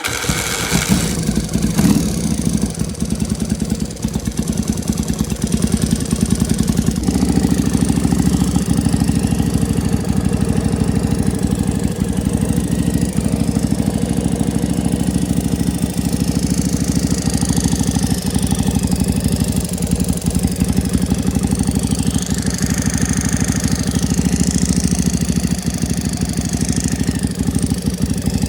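1982 Yamaha Virago XV750's air-cooled V-twin idling steadily just after starting; its note shifts slightly about seven seconds in. Somewhere in the running is a mystery noise the owner is still chasing.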